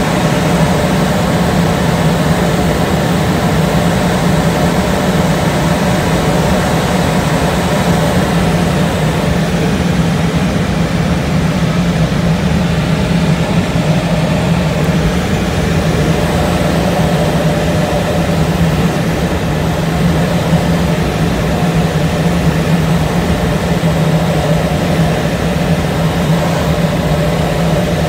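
Steady drone heard from inside a glider's cockpit on aerotow: the tow plane's engine running ahead, mixed with airflow rushing over the canopy.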